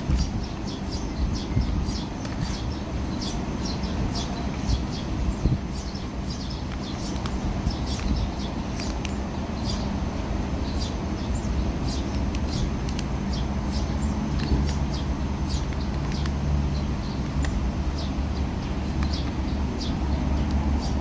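A steady low engine rumble with even tones in it, growing a little stronger about halfway through. Many short, high ticks run over it throughout.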